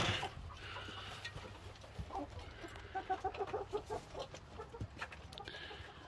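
Roosters in a pen clucking, a run of quick, short clucks in the middle, after a brief bump right at the start.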